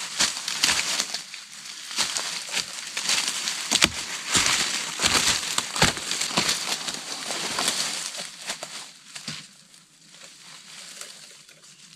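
Footsteps crunching through dry leaf litter and undergrowth, with twigs and brush crackling and snapping as a dead log is hauled through it. The sound grows quieter from about nine seconds in.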